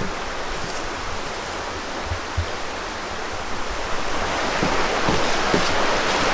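Steady rush of flowing stream water, growing louder about four seconds in, with a few soft thumps.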